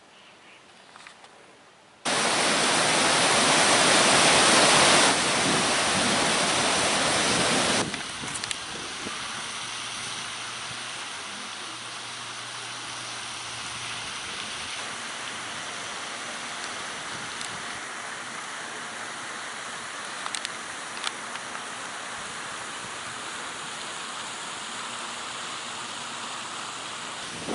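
A pond fountain's jets falling and splashing onto the water: a steady rushing spray noise. It starts abruptly about two seconds in, is loudest for the next several seconds, then settles to a lower, even level.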